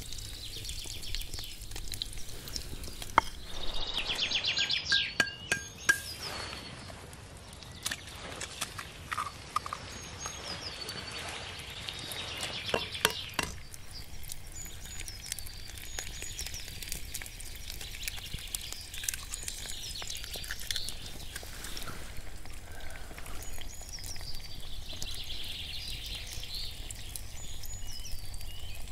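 Wood campfire crackling with scattered sharp pops under a cooking pot, with birds chirping in the background.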